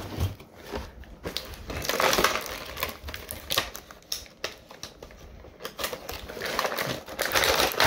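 Action figure packaging being opened by hand: plastic blister and cardboard crinkling and rustling, with scattered clicks and louder stretches about two seconds in and near the end.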